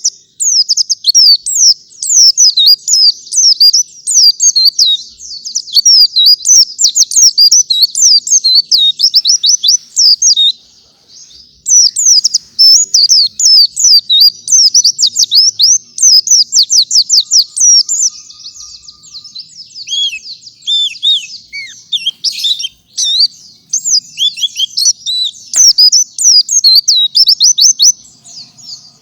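White-eye (pleci) singing in a fast, continuous run of high, rapid twittering notes, the steady full-flow song that bird keepers use as a master song for training other white-eyes. It breaks off briefly about eleven seconds in and goes softer and sparser for a few seconds past the middle before picking up again.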